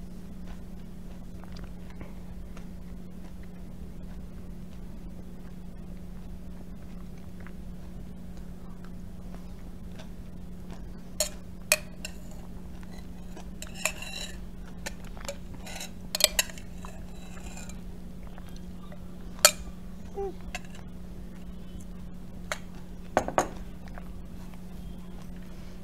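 Metal spoon clinking and scraping against a glass cup while scooping smoothie and granola. Quiet at first, then a scattered run of sharp clinks through the second half, ending with a few knocks as the cup is set down on the table.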